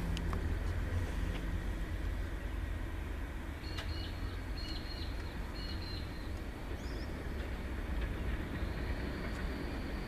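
Diesel-electric freight locomotives, an Aurizon 2800 class and a 1720 class, running under power with a steady low rumble. Short high squeals come in about four seconds in.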